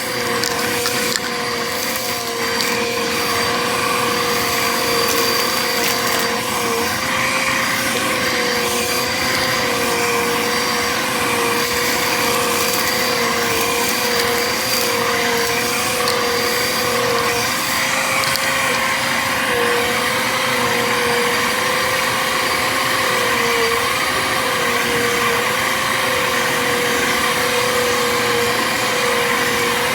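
Bissell vacuum cleaner running steadily, its motor tone dipping briefly now and then, with crackling in the first few seconds as foil confetti is sucked up.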